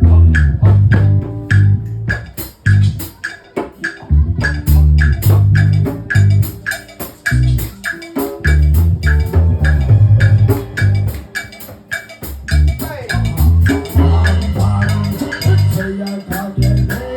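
Live band playing a reggae groove: a heavy bass guitar line under drums and short, evenly repeated guitar chops, about two a second.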